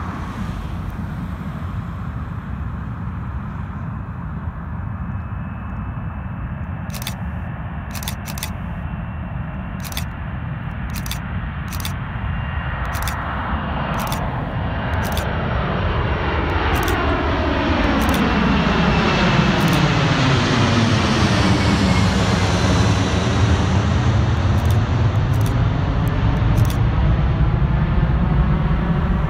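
Airbus Beluga transport jet climbing out on take-off, its twin jet engines building from a distant rumble to a loud pass overhead with a whine that falls in pitch. It is loudest for the last ten seconds or so.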